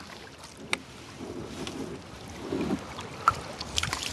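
Kayak on a moving river: a paddle splashing and water moving around the hull, with a sharp knock about three quarters of a second in and a few lighter clicks later.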